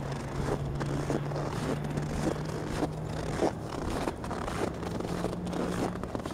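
Footsteps crunching on packed snow, about two steps a second. A faint low steady hum sits behind them, stops about three seconds in, and comes back briefly near the end.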